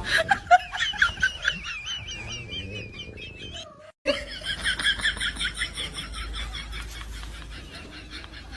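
Rapid, repeated high-pitched chirping calls from an animal, in two runs broken by a short gap about four seconds in; the second run goes at about four chirps a second and fades.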